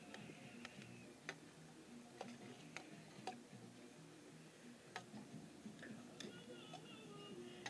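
Metal spoons clinking against a stainless steel serving tray as people eat: faint, irregular clicks, about one a second.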